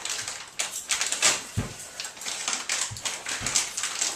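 Plastic packaging crinkling and rustling as it is handled, with many sharp irregular crackles and clicks and a few dull thumps.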